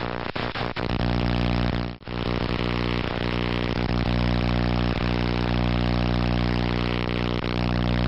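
Steady low droning hum with many even overtones that hold their pitch. It drops out sharply for a moment about two seconds in, then resumes unchanged.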